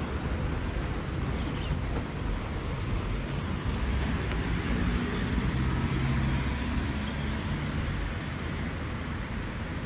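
Steady city road traffic noise from passing cars and buses, with a low engine hum rising out of it from about four to seven seconds in.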